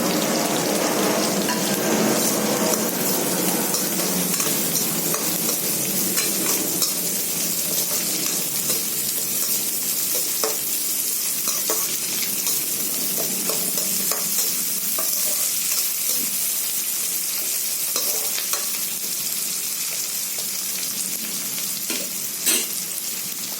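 Small onions and dried manathakkali (black nightshade) berries frying in sesame oil in a kadai: a steady sizzle, with scattered taps and scrapes of a spoon stirring them in the pan.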